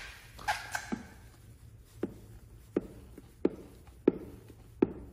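Plastic squeegee swiping over wet paint protection film on a car side mirror, pressing out the slip water: a series of short, sharp strokes about one every three-quarters of a second.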